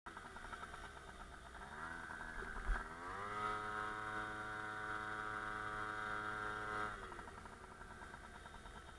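Suzuki FA50 moped's small two-stroke single-cylinder engine running at low revs, with a thump about two and a half seconds in. The revs then rise about three seconds in, hold steady while riding, and drop back to low revs around seven seconds in.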